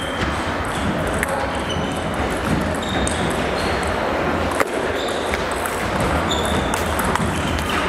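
Celluloid-type table tennis ball clicking off bats and the table in a rally, the single hits spaced out and irregular, over the steady background noise of a large hall where play goes on at other tables.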